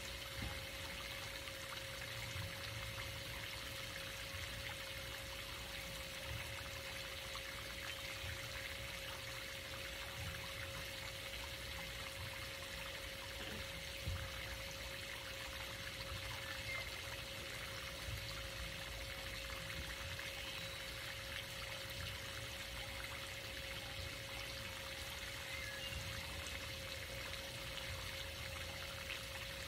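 Steady splashing of a swimming pool's water jet arcing into the pool, with a faint steady hum underneath.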